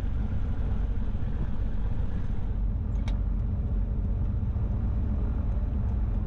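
Cessna 310's two piston engines idling, a steady low rumble with both propellers turning slowly. A brief sharp click about three seconds in.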